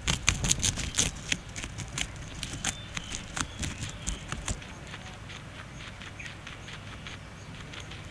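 Guinea pig chewing fresh green grass stalks: a quick run of crisp crunching clicks over the first four and a half seconds, then sparser and quieter bites.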